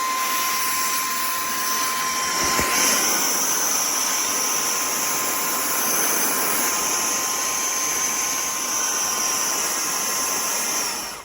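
Cordless handheld vacuum running on high in blower mode: a steady high-pitched motor whine with rushing air. Its pitch steps up slightly about three seconds in, and it cuts off abruptly at the end as it is switched off.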